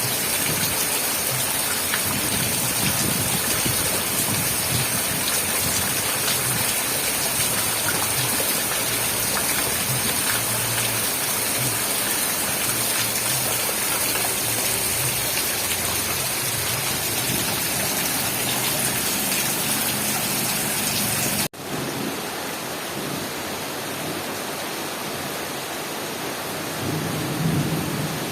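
Heavy, steady rain with low rumbling underneath. About three quarters of the way through it cuts off abruptly to a slightly quieter stretch of rain.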